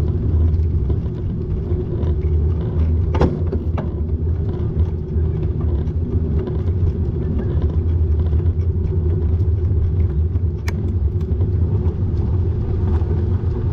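Steady low rumble of a bike ride along a road, from motor or road and wind noise, with a short sharp click about three seconds in and another near eleven seconds.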